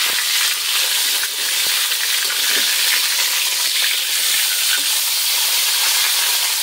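Whole fish shallow-frying in hot oil in a wok: a steady sizzle. A metal spatula clicks lightly against the wok a few times as the fish is turned over.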